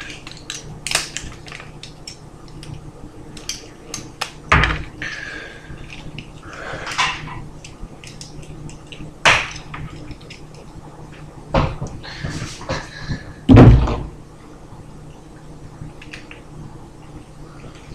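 Objects being handled on a hard surface: scattered clicks and knocks, with a heavier thud about four and a half seconds in and a louder one near the end, over a faint steady hum.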